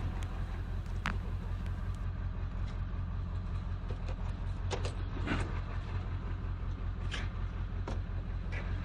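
Steady low hum of an idling vehicle engine, with about five sharp metal knocks and clanks from scrap wheelbarrow parts being handled.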